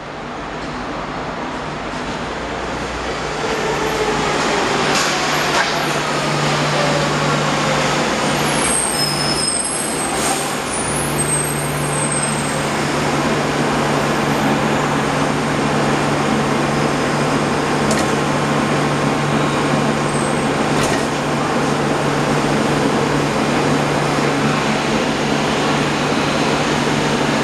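SMRT CX-100 rubber-tyred light rail train pulling into the platform, growing louder, with a falling whine as it slows to a stop. It then stands with a steady low hum from its onboard equipment, and there are a couple of sharp clicks about two-thirds of the way through.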